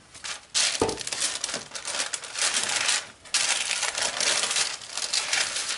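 Packaging crinkling and rustling as it is handled, in two long stretches with a short pause about three seconds in, and a soft thump about a second in.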